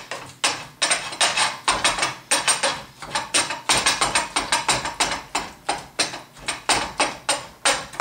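Avocado being mashed by hand with a ground beef masher in a glass bowl: quick, irregular knocks and squishes as the masher strikes down into the bowl, about three a second.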